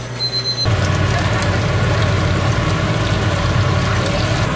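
Hot oil sizzling and bubbling steadily as battered Korean fritters (twigim) deep-fry in a wide pan. It comes in abruptly about half a second in.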